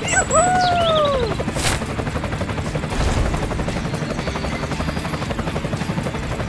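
Small motor running with a fast, steady rattle. A short falling pitched cry comes in the first second, and a single sharp click follows shortly after.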